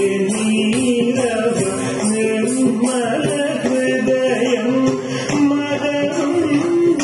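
Carnatic-style song: a singer's voice over held instrumental tones, with a steady beat of percussion.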